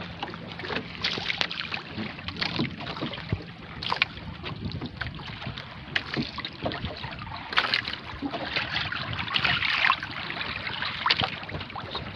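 Wind on the microphone and water lapping around a small wooden outrigger boat, with scattered knocks and handling noises as the handline is worked.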